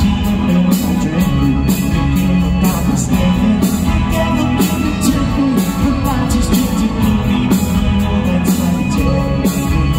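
Live rock band: electric guitars, drum kit and hand percussion playing a steady beat, amplified through a concert PA.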